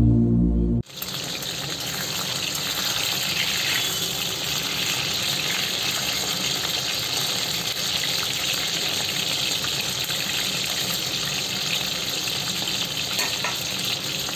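Batter-coated mushroom pieces deep-frying in hot oil in a kadhai: a steady, even sizzle. Background music cuts off about a second in, just before the sizzle starts.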